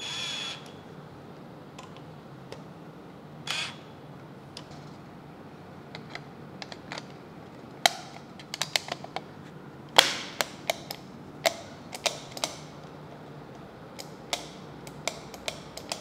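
A cordless drill driver whirs briefly twice, driving the wall switch's mounting screws. Then a run of sharp plastic clicks and snaps follows as the Aqara wall switch's front panel is pressed into place.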